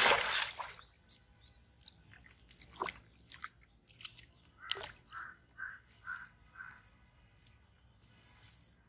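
A hooked catfish is yanked out across the pond surface on a bamboo pole and line, throwing up a loud splash at the start. Smaller splashes and flaps follow as it thrashes at the surface, and around the middle a bird calls five times, about twice a second.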